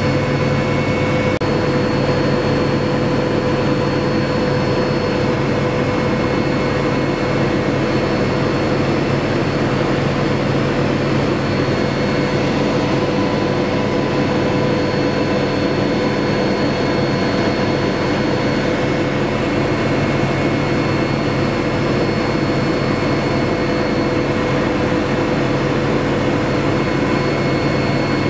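Helicopter in flight heard from inside the cabin: the steady drone of the rotor and engine, with a constant whine over it that holds the same pitch throughout.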